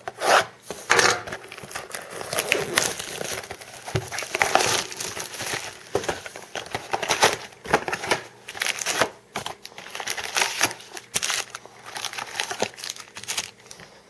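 Plastic wrapping on football trading cards being torn open and handled, with irregular crinkling and crackling.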